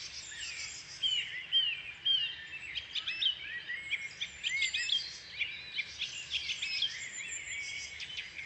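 Several songbirds singing at once: a busy mix of chirps, trills and short whistled phrases that rise and fall, overlapping the whole time.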